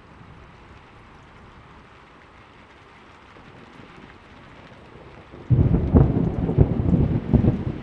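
Steady rain falling, then about five and a half seconds in a sudden loud thunderclap that crackles and rumbles on.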